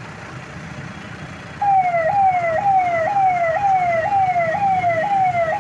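A man imitating an ambulance siren with his voice. He makes a falling wail repeated about twice a second, which starts abruptly about a second and a half in.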